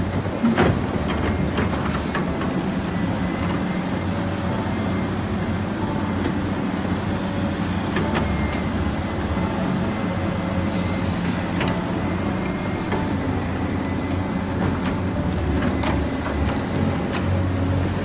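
Radio-controlled model construction vehicles running: a steady electric motor and gear whine over a low mechanical hum, with a few short knocks.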